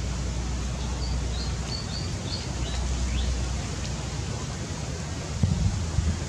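Steady outdoor background hiss with a low hum, and a short run of faint high chirps in the first half, some of them falling in pitch. A few low bumps near the end.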